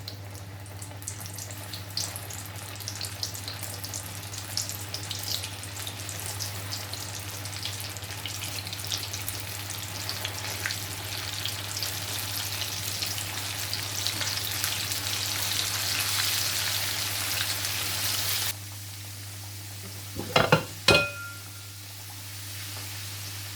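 Floured chicken strips deep-frying in hot oil in a pot, a dense crackling sizzle that grows louder. It cuts off suddenly about 18 seconds in, followed by a couple of sharp metallic clanks.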